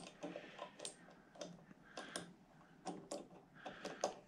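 Faint, irregular clicks and small knocks of hardware and hand tools being handled during assembly of a quilting machine frame, about a dozen in all.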